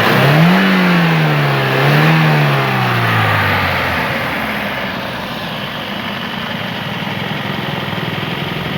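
Toyota Corolla XLi's VVT-i four-cylinder petrol engine being revved twice with the throttle, the second rev smaller, then dropping back to a steady idle about four seconds in. It runs evenly with its throttle body freshly cleaned: the misfire is cured.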